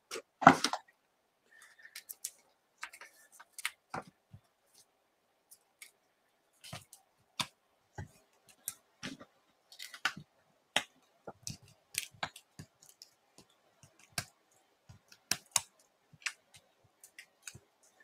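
Irregular small clicks, taps and paper rustles of hands working with cardstock on a desk: foam adhesive dimensionals being peeled from their backing sheet and pressed onto a die-cut cardstock circle. A sharper tap comes about half a second in.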